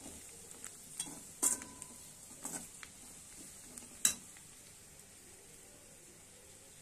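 Steel spatula stirring chicken fry in a metal kadai over a faint sizzle, with a few sharp clinks and scrapes against the pan. The loudest clink comes about four seconds in, after which only the low sizzle goes on.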